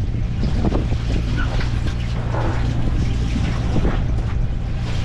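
Steady low drone of a fishing boat's machinery running, with wind buffeting the microphone.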